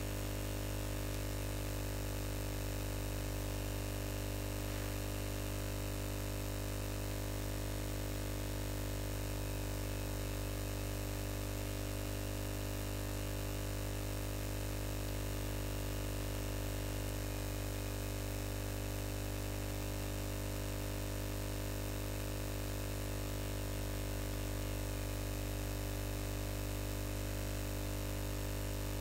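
Steady electrical hum with hiss underneath, unchanging throughout; no other sound.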